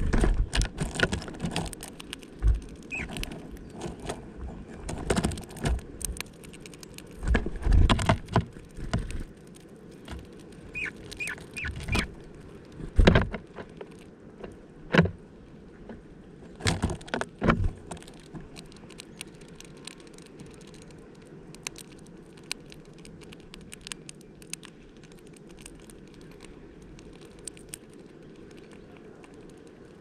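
Close-up knocks, clicks and rustles of small birds pecking and shuffling among seeds and nuts in a feeder made from a five-litre plastic bottle, busiest in the first half and thinning to faint ticks later. A few short high chirps come about eleven seconds in.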